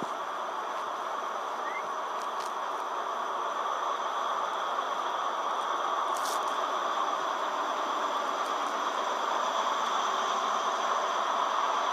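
Class 43 HST power car's diesel engine running, heard as a steady hum with several high whining tones above it, growing slightly louder. It is played back through a phone or tablet speaker, so it sounds thin, with almost no bass.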